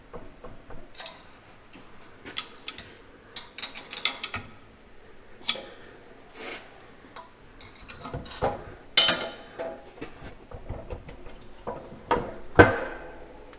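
Metal tools and tractor parts clinking and knocking against each other at irregular intervals during hand work on a PTO assembly, with two louder ringing metal knocks, one about two-thirds of the way through and one near the end.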